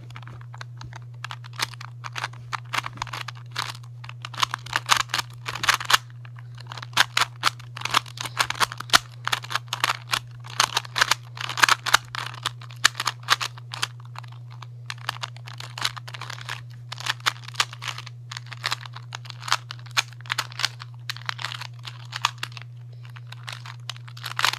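Rubik's-brand 2x2 cube being turned fast in a speed solve: a dense run of plastic clicks and clacks with a few brief pauses, over a steady low hum.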